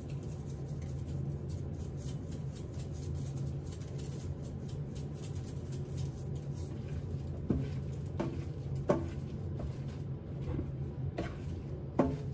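Light handling noises from gloved hands seasoning steak at a sink: soft patter and scratching, with a few sharper knocks in the second half, over a steady low hum.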